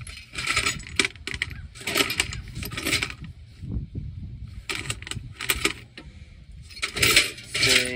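Bolts and small metal hardware clinking and rattling in several short bursts as they are handled and fitted into a tractor's dash panel.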